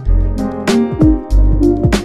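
Background music with a beat: deep kick drums that drop in pitch over a sustained bass, sharp percussion hits, and short melody notes above.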